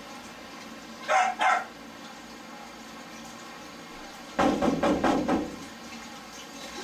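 A dog barking: two short barks about a second in, then a quicker, louder run of barks around four and a half seconds.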